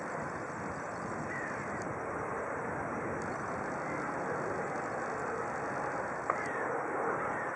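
Gulls giving a few short calls, around one and a half seconds in and again near the end, over the steady drone of a helicopter flying among them. A single sharp click comes about six seconds in.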